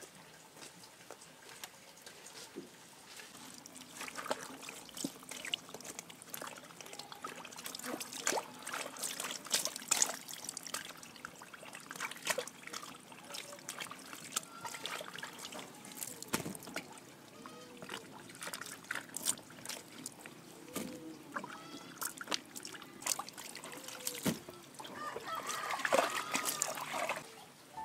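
Water trickling and splashing as leafy vegetables are swished and washed by hand in a basin of water, with many small splashes and clicks. Near the end, rustling of plant leaves.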